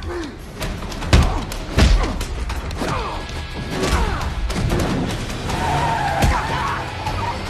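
Movie action sound mix: heavy crash impacts and car tyre skids over a loud music score, with the two biggest hits about a second and two seconds in.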